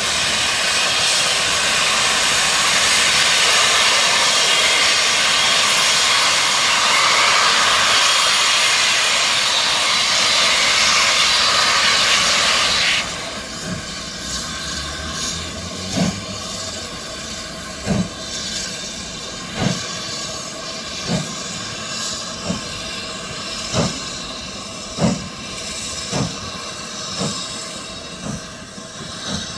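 Steam locomotive Tornado, a Peppercorn A1 Pacific, hissing loudly with escaping steam that cuts off suddenly about 13 seconds in. A few seconds later slow, separate exhaust chuffs begin, one every second or two and coming a little quicker: the engine pulling away from a stand.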